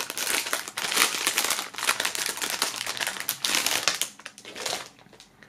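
Clear plastic bag crinkling as a pair of socks is pulled out of it: a dense crackle for about four seconds, then only a few faint rustles.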